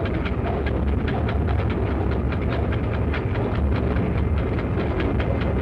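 SNCF 060 DB diesel-electric locomotive running, with a steady low rumble and a fast, irregular clicking over it, as it moves off slowly with its train once the starting effort is over.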